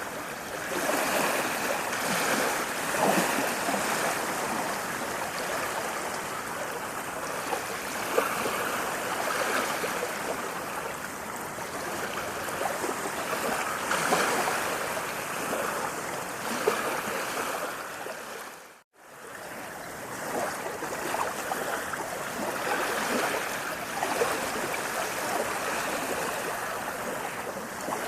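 Running water, a steady splashing rush with many small gurgles, swelling and easing every few seconds. The sound fades out for a moment about nineteen seconds in and comes straight back.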